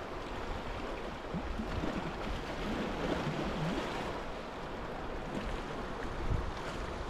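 Sea water washing and surging around shoreline rocks: a steady rushing noise with small swells in level.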